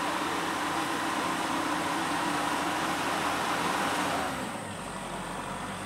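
Kubota Agri Robo SL60A robot tractor's diesel engine running steadily as it drives past close by, its rotary tiller churning the soil. The sound drops a little in level about four seconds in.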